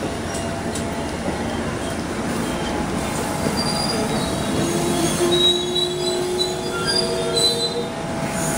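Amtrak passenger coaches rolling slowly past with a steady rumble of wheels on rail. Thin, high wheel squeals come and go through the second half.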